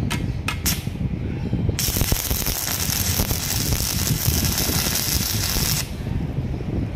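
Electric arc welding: a tack weld crackling and sizzling for about four seconds, starting about two seconds in, after a few sharp clicks. A steady low rumble runs underneath.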